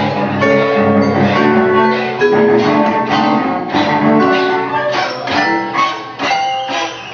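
String trio playing live: a busy stream of short notes with sharp attacks, several sounding together and changing every fraction of a second.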